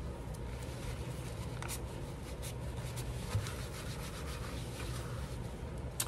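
Faint rubbing and rustling of paper being pressed and smoothed by hand over wet glue, with a few light clicks, over a steady low hum.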